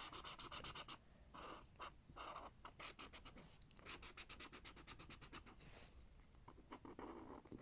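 Faint, rapid scratching of a colouring tool stroked back and forth on a colouring-book page.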